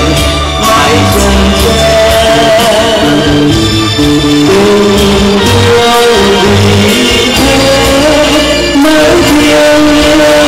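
A man singing into a handheld microphone, heard through a PA over amplified backing music with a steady bass line.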